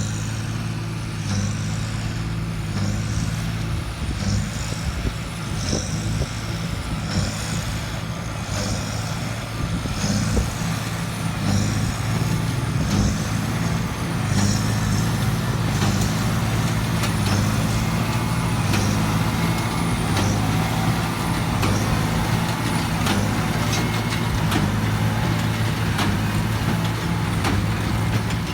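Tractor engine running steadily while pulling a working hay baler, with a rhythmic metallic clatter from the baler about one and a half times a second and scattered sharp clicks later on.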